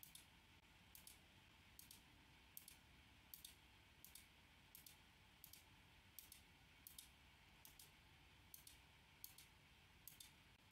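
Faint computer mouse clicks, each a quick press-and-release pair, repeated a little more than once a second as an on-screen button is clicked over and over.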